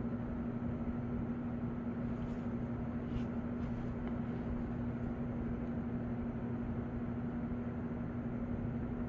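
Steady low rumble and hiss with one constant low hum tone, unbroken by singing or music.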